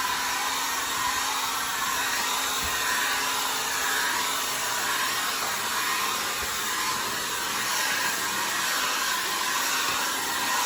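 Handheld blow dryer running steadily, a continuous even rush of air with no change in speed.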